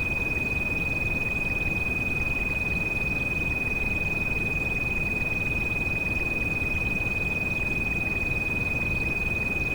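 A steady, unwavering high-pitched pure tone, a tinnitus treatment frequency, held over the constant rumbling hiss of rain.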